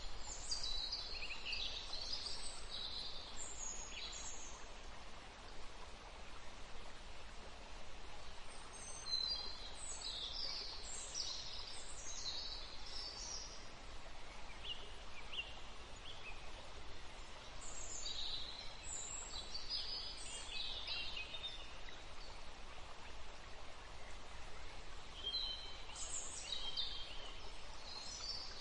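Birds chirping in scattered bursts of short, high calls every several seconds, over a steady background hiss.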